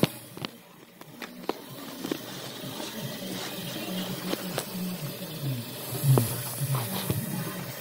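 Tap water running and splashing onto a greasy electric griddle plate in a stainless steel sink, with a few sharp knocks as the griddle and sink are handled.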